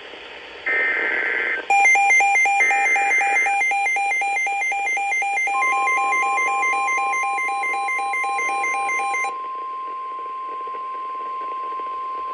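Emergency Alert System broadcast tones on NOAA Weather Radio. Two short buzzy SAME digital header bursts come through early. An electronic alarm warbles rapidly between two pitches from about two seconds in until near the nine-second mark. About halfway through, the steady 1050 Hz weather-radio attention tone begins and holds to the end, announcing a severe thunderstorm warning.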